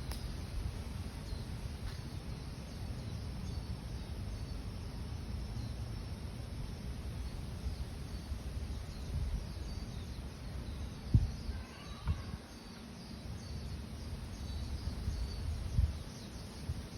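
Forest ambience: small birds or insects chirping high and faint in short repeated notes over a steady low rumble, with one lower call a little past the middle. A few sudden low thumps come around the middle and near the end.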